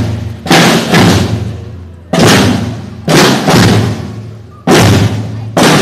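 Snare-type procession drums of a marching drum corps played in unison: loud accented strokes about once a second, several in quick pairs, each dying away before the next.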